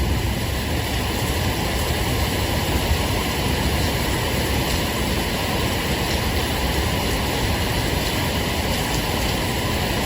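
Steady heavy rain, an even hiss with no breaks.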